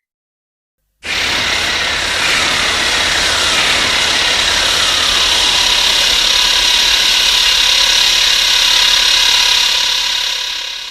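A White Ghidorah monster sound effect: a loud, harsh, noisy rush that starts about a second in, with a steady high tone and several tones sliding slowly downward through it. It fades out near the end.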